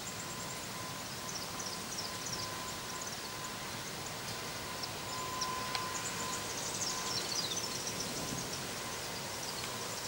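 Distant diesel locomotives running as they slowly pull a grain train, heard under an even rush of wind and outdoor background noise, with birds chirping high over it.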